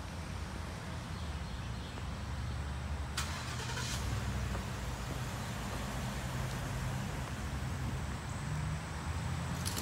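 Steady low mechanical rumble, with a short hiss about three seconds in.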